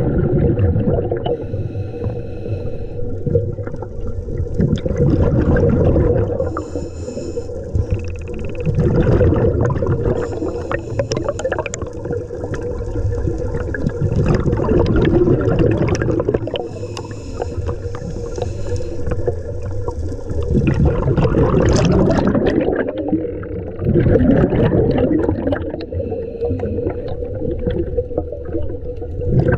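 Scuba diver breathing through a regulator underwater: a hissing inhale, then a rumbling gush of exhaled bubbles, repeating every few seconds.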